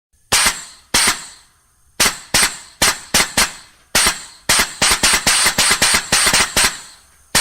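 Short, sharp blasts of compressed air, each hissing out and dying away quickly. The first few come about a second apart; from about four seconds in they follow each other rapidly, several a second.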